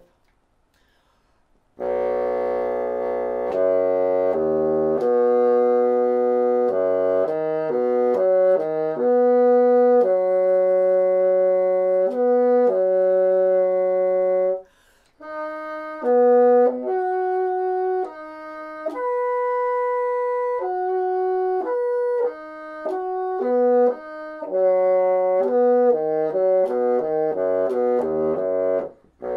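Bassoon playing slurred broken arpeggios at a mezzo forte, a practice exercise for pitch and reed flexibility. After about two seconds of silence the notes climb from the low register up to high notes and step back down to the bottom, with a short breath break about halfway.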